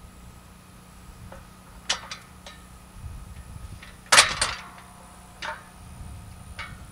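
Metal clanks and knocks from the painted metal brackets of a solar tracker frame being moved and swung on their bolts, a few light clicks and one louder clank about four seconds in that rings briefly.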